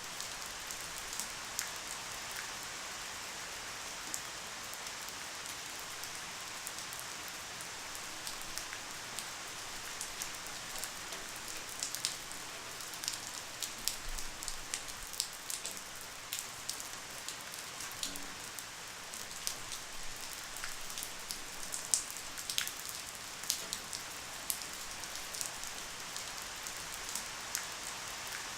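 Light, steady rain: an even hiss with many distinct drops ticking on a surface, scattered irregularly.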